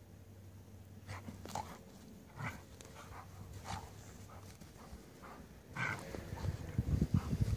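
Yellow Labrador and Belgian malinois/Czech shepherd mix play-fighting: short yips and grunts from about a second in, then louder, low growling and scuffling from about six seconds in.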